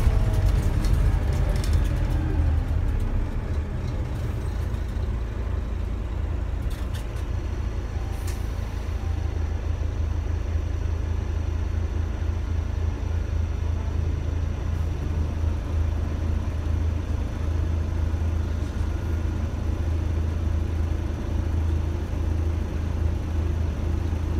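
Scania OmniDekka double-decker's DC9 five-cylinder diesel heard from the upper deck: the revs fall away in the first couple of seconds, then settle into a steady low drone.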